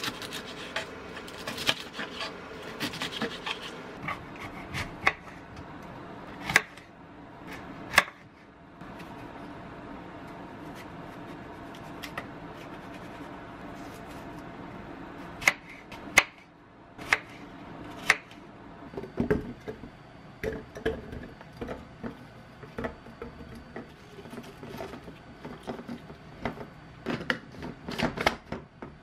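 Kitchen knife cutting spinach and apple on a wooden cutting board, with sharp knocks of the blade against the board. Near the end come a run of small knocks and rustles as the pieces are handled and packed into a glass blender jar.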